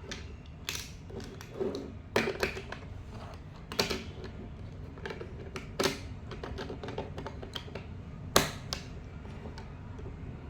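Irregular light clicks and taps of small objects being handled, with a louder knock about eight seconds in.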